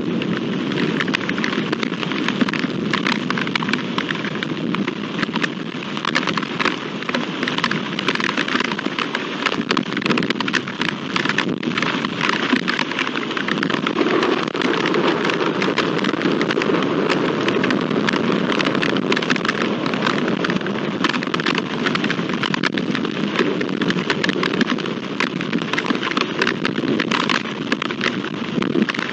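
Heavy downpour: steady rain falling hard on the ground and nearby surfaces, with a dense patter of close drop hits.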